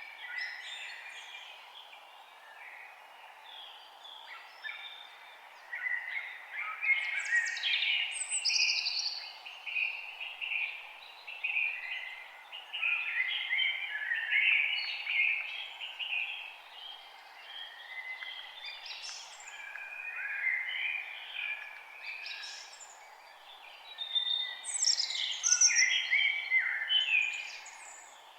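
Several songbirds singing in a forest, with overlapping chirps and trills. The birds are busiest about a quarter of the way in and again near the end, over a steady background hush.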